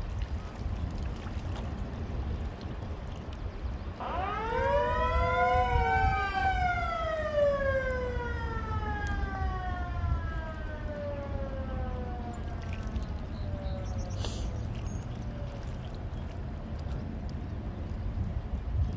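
A motor-driven siren winds up, its pitch rising for about two seconds, then winds slowly down and fades over the next several seconds, over a steady low rumble.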